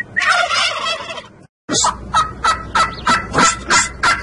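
Domestic turkey toms gobbling: a dense rattling gobble in the first second, a moment of total silence, then a quick run of repeated gobble notes, about three a second.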